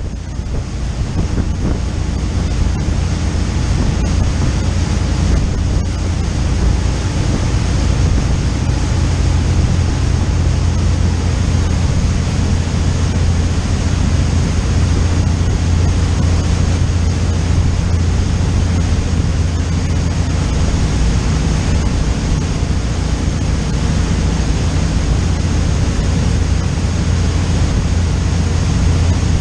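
Motor yacht under way at speed: a steady rush of churning wake water and wind buffeting the microphone, over a constant low drone from the boat.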